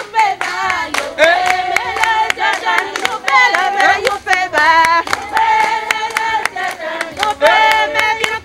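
A group of people singing together with steady rhythmic hand clapping.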